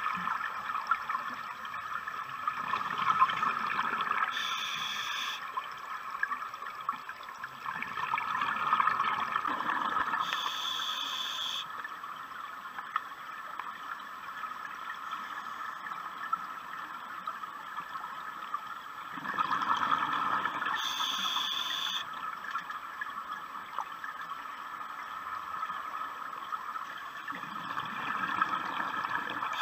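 A scuba diver breathing through a regulator underwater: slow, repeated swells of exhaled bubbles, each paired with a short hiss from the regulator, several breaths in a row.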